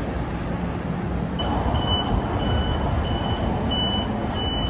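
An electronic warning beeper sounds one high tone on and off about twice a second, starting about a second and a half in, over a steady low rumble.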